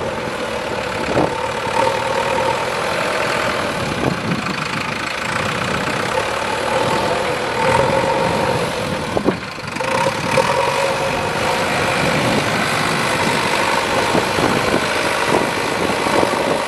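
JCB 3DX backhoe loader's diesel engine running steadily as the machine moves about, with a steady whining tone over the engine. The sound drops briefly about nine seconds in.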